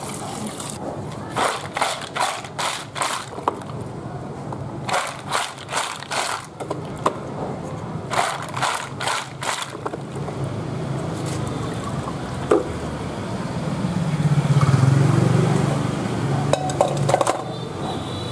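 Land snail shells clattering and scraping against a plastic colander, with water swishing, as the colander is shaken and stirred in rhythmic runs of quick strokes. Later a low rumble swells and fades in the background.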